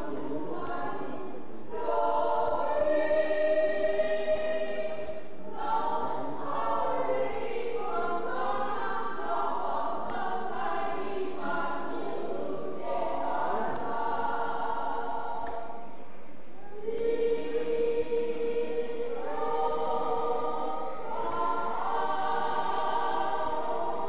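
A group of voices singing together in long held phrases, with brief pauses between phrases about five seconds and sixteen seconds in.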